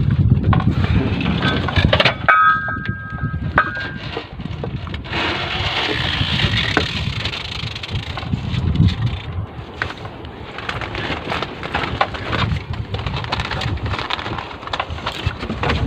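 Wind buffeting the microphone, with scattered knocks and rustles as fishing line and a foam float are handled on a wooden outrigger boat. A short high squeak-like tone comes about two seconds in.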